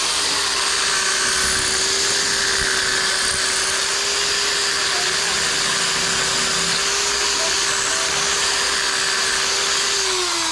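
Electric drill running steadily at one constant pitch for about ten seconds, then winding down just before the end.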